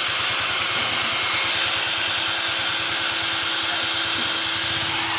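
A machine running steadily: a constant hiss with an even hum underneath, unchanging in pitch and level.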